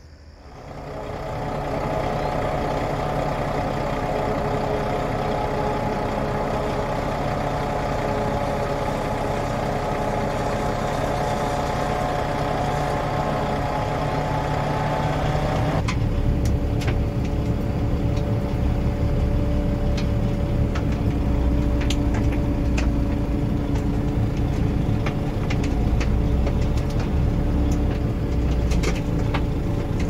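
Diesel engine running steadily, heard from inside a truck cab. About 16 seconds in the sound changes to a deeper rumble with scattered sharp ticks, as the truck follows a John Deere self-propelled forage harvester chopping standing corn for silage.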